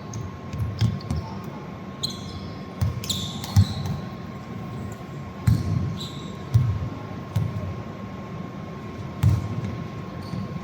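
Basketball game play: a ball bouncing on a court in irregular low thuds, with short high squeaks of shoes scattered among them.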